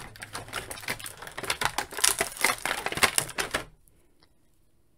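Thin clear plastic blister tray crackling and clicking in rapid, irregular snaps as a small action figure is pried out of it; it stops just before four seconds in.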